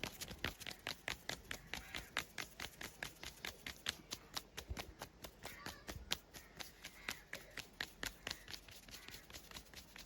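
A fast, even run of sharp taps, about five a second, with one louder tap about six seconds in.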